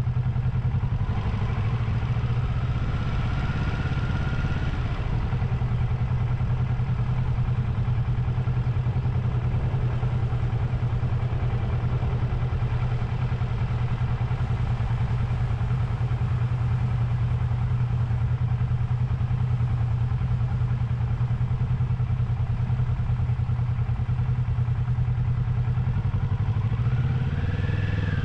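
Motorcycle engine running steadily at low speed as the bike rolls along, with a brief rising whine about a second in and again near the end.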